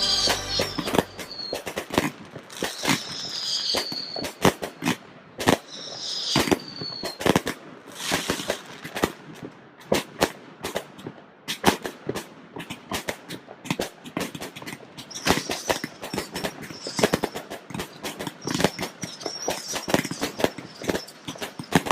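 Fireworks going off: a dense run of sharp bangs and crackles of varying loudness, with several whistles falling in pitch in the first few seconds and wavering high whistles later on.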